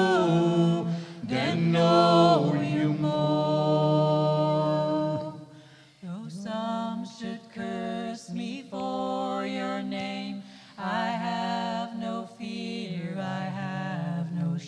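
A small mixed group of men's and women's voices singing a worship song a cappella, without instruments: a long held chord, a short break about six seconds in, then the singing carries on in shorter phrases.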